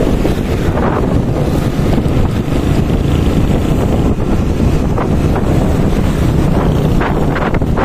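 Wind buffeting the microphone of a handlebar-mounted camera on a moving motorbike, over the bike's engine and road noise. There are a few sharper gusts in the second half.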